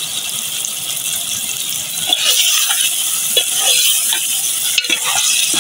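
Curry masala sizzling in a metal pot while a steel ladle stirs potatoes, peas, tomato and green chillies, scraping and clinking against the pot. The stirring picks up about two seconds in.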